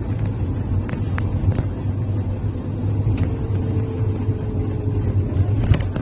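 Cabin noise inside a moving intercity bus: a steady low rumble of engine and road, with a few faint clicks in the first two seconds.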